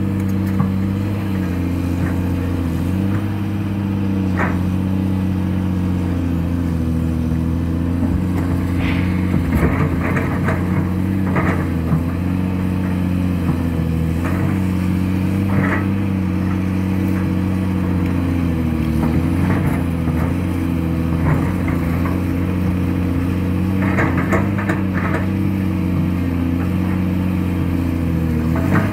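Caterpillar 336D hydraulic excavator's six-cylinder diesel running steadily under load while digging rock, its engine note sagging briefly every five seconds or so as the hydraulics take the load. Scattered clanks and scrapes of rock against the steel bucket, in bunches about ten seconds in and again near the end.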